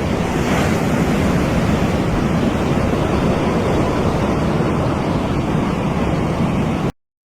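Ocean surf washing onto a beach, a steady rushing sound with a deep low end; it cuts off abruptly near the end.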